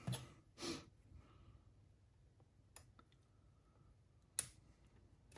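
A few faint, sharp clicks of small parts and tools being handled on a workbench, the loudest about four seconds in.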